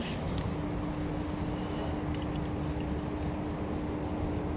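Steady outdoor ambience: a constant high insect chirring, like crickets, over a low rumble, with a faint steady hum coming in about half a second in.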